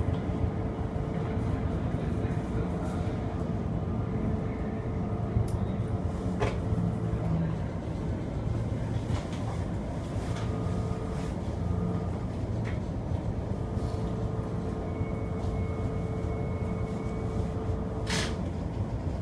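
E231 series electric train heard from the driver's cab, braking into a station and slowing from about 38 km/h to a stop, with steady running noise and a faint steady whine that comes and goes. A short hiss comes near the end as it stops.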